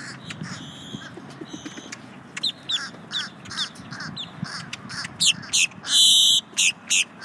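Grackle calling up close: a run of short, sharp downward-sweeping notes about two a second, then louder harsh calls, the loudest a long squeal about six seconds in.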